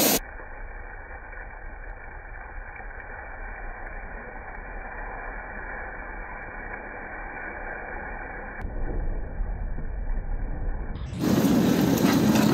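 Muffled, steady hiss and sizzle from a hot cast-iron Dutch oven as red wine is poured in to deglaze it. It grows louder about nine seconds in.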